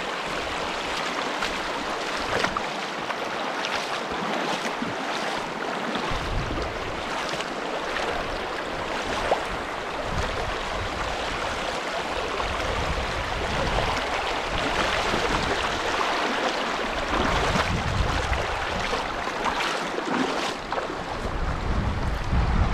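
Wind gusting against the microphone in uneven low rumbles, over a steady rushing hiss.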